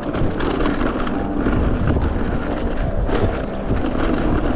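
Wind buffeting the microphone over a steady low rumble and scattered rattles and knocks, as of a mountain bike ridden fast down a rough dirt trail.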